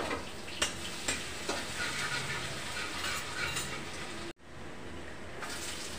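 Garlic frying in hot oil in a metal kadhai, sizzling steadily, while a metal spoon stirs it and clinks against the pan a few times in the first second and a half. The sound cuts out for an instant about four and a half seconds in.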